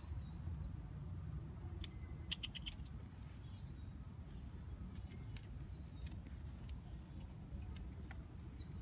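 Light patter of scattered clicks and scratches from a black squirrel's claws on dirt and a wooden board as it moves about with a peanut, with a quick run of clicks about two and a half seconds in, over a steady low rumble.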